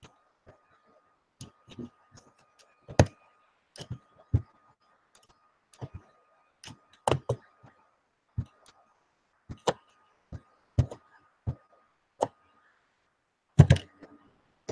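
Irregular sharp clicks and taps of a computer keyboard and mouse, about one or two a second, with a faint thin whine coming and going underneath.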